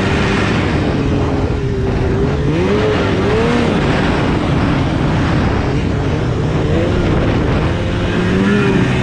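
2016 Polaris RMK 800 snowmobile's two-stroke twin engine, fitted with a Bikeman aftermarket exhaust can, running under way, with its pitch rising and falling again and again as the throttle is worked.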